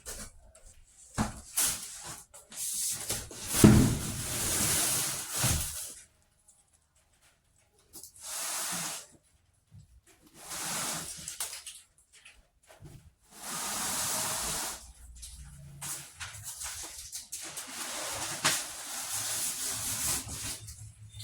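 Packaging being handled while unboxing a washing machine: intermittent rustling and scraping noise in separate bursts, with a few knocks.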